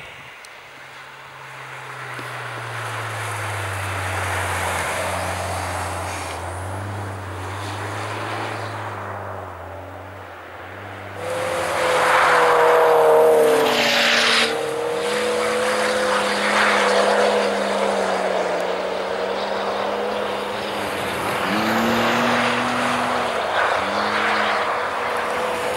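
Car engine revving hard as a car slides on a snow-covered frozen ice track. It grows louder as the car approaches, and about eleven seconds in it jumps much louder and higher with a hiss of tyres throwing up snow as it passes close. After that the revs rise and fall with the throttle.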